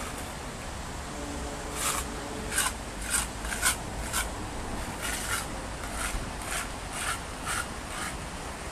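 Footsteps crunching at a walking pace, about two a second, with a short break midway, over a steady low hum of city background.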